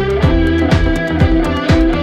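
Background music with a steady beat of about two hits a second.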